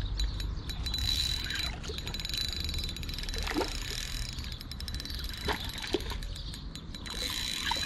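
Hooked pike swirling and splashing at the surface against the bank while being played on an ultralight spinning rod, with rapid faint clicks and a low rumble of wind on the microphone.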